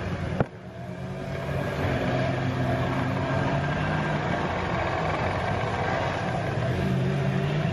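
Longboat outboard motor running steadily with a low drone, with a sharp knock about half a second in.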